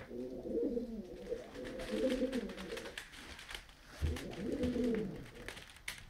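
Male domestic pigeon cooing, the deep courtship coo of a cock bird. Two long cooing phrases, each dropping in pitch at its end, over light clicking.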